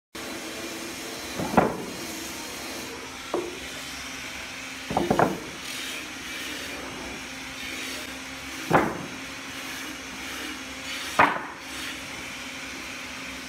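Rough-sawn wooden boards knocking against each other as they are lifted and set down on a lumber pile, about five separate clacks, with a quick cluster of them about five seconds in, over a steady background hum.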